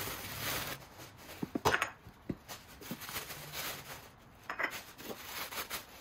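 Tissue paper rustling as china is unwrapped, then a few light clicks and clinks as porcelain teacups and saucers are set down on a hard countertop.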